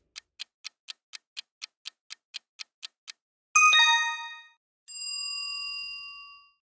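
Quiz countdown-timer sound effect: a clock ticking about four times a second for three seconds. It stops, and a bright chime rings out and dies away. A second, softer ringing tone follows, held for about a second and a half before fading.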